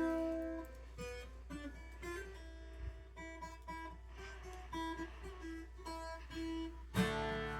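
Acoustic guitar music: single plucked notes picked out one after another, with fuller strummed chords coming in near the end.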